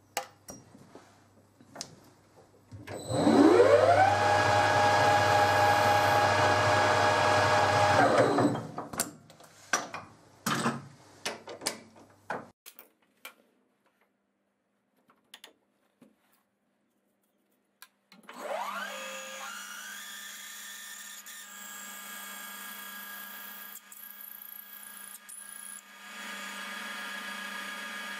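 Lathe spindle motor starting with a rising whine, running steadily for about five seconds and stopping, followed by a few clicks and knocks. After a pause it starts again with the same rising whine and runs on steadily, quieter.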